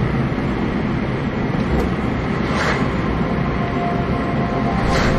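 A car driving along, heard from inside the cabin: steady engine and road noise, with a couple of faint clicks.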